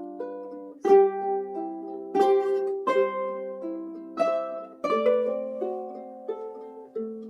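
Ukulele playing a melody over plucked chords, each note ringing and decaying; strong strums land about once every second or so.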